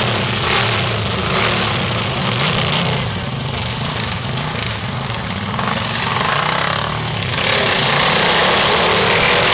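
Racing lawn mowers' small engines running steadily, growing louder about seven seconds in.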